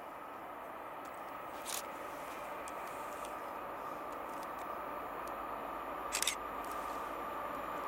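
A distant train approaching, heard as a steady noise with an even high hum that slowly grows louder. Two short sharp clicks stand out, about two seconds in and about six seconds in.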